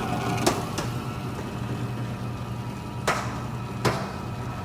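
Manaras commercial door operator's electric motor running steadily as it drives the door closed, with a few sharp clicks: one about half a second in and two between three and four seconds in.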